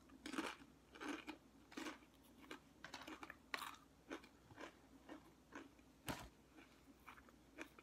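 A person chewing crunchy food close to the microphone: a string of irregular crunches, about two a second, with one sharper click about six seconds in.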